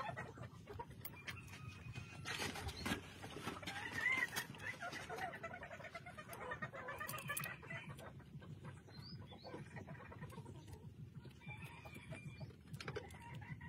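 Faint clucking of chickens, with a few small clicks scattered through.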